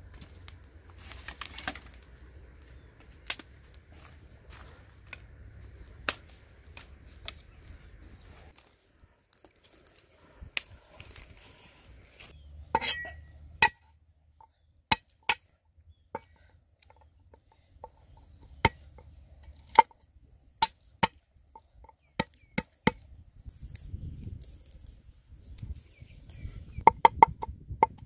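A heavy steel cleaver striking a wooden chopping board while chopping garlic: single chops about a second apart, then fast chopping of about four strikes a second near the end, each blow with a short metallic ring. Before that, scattered light crackles and clicks of dry twigs.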